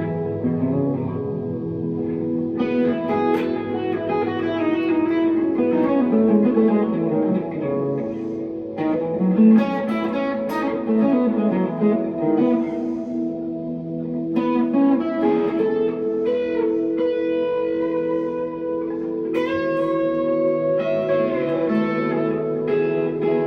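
1963 Fender Telecaster electric guitar played through a 100-watt amp with a 12-inch Celestion speaker, with delay and reverb: slow chords and single notes left to ring and overlap, new picked notes entering every few seconds.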